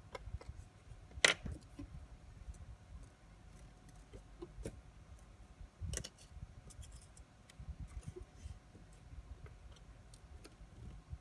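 Light, irregular metallic clicks and taps of small watchmaker's tools and parts being handled during disassembly of an automatic wristwatch, the sharpest click about a second in and another near six seconds.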